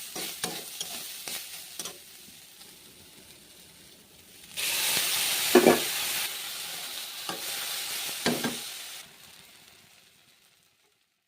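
A spatula knocking and scraping in a pan while stirring, about two seconds of quick taps, then food sizzling in hot oil in a steady hiss for about four seconds, with a few stirring knocks in it.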